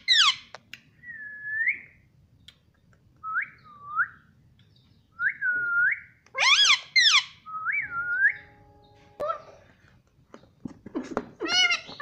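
Indian ringneck parakeet whistling: a string of short whistles that dip and rise, broken by loud, harsh calls at the start, midway and near the end.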